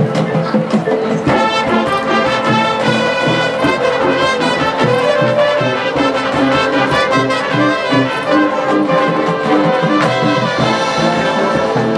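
Marching band playing: the brass section holds chords that change every second or so over drums, and the brass comes in fuller about a second in.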